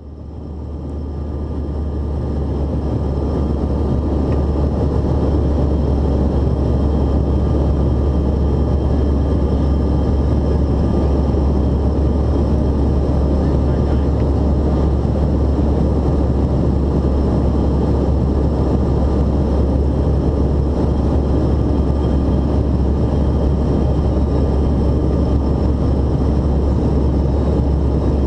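Steady cabin noise of a Bombardier CRJ-900 jet in flight, heard from inside the cabin: a constant deep rumble with a hiss of airflow above it, fading in over the first few seconds.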